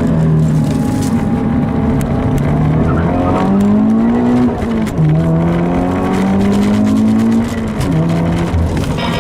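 Car engine under hard acceleration, its pitch climbing and then dropping back at two gear changes, the second near the end.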